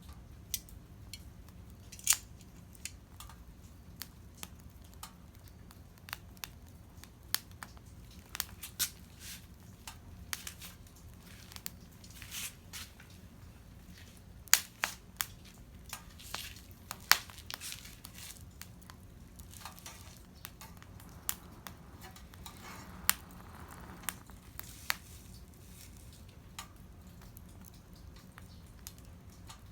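Small wood fire crackling, with irregular sharp pops and snaps, a few louder than the rest.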